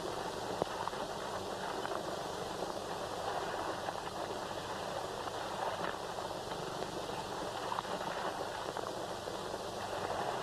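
Steady hiss of an old 1930s film soundtrack, with a few faint clicks and crackles.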